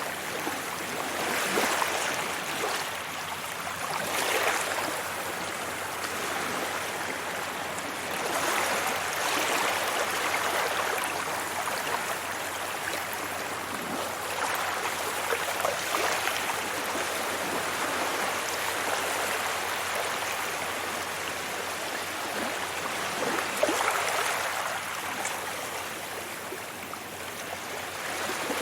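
Sea waves washing onto a beach: a steady rushing wash that swells and falls back as each wave breaks, every few seconds.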